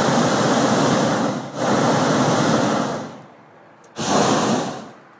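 Hot air balloon's propane burner firing in blasts: a long blast that breaks briefly about a second and a half in and runs on to about three seconds, then a short blast just under a second long about four seconds in, each cutting off sharply.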